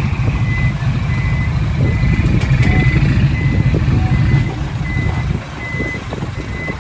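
Dump truck's reverse alarm beeping about twice a second over the loud, steady rumble of its diesel engine as the loaded truck backs up; the engine eases a little about five seconds in.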